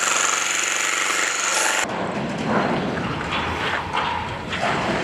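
Handheld electric demolition hammers chiselling up floor tiles, a dense hammering noise that stops sharply about two seconds in and gives way to a lower, uneven rumble.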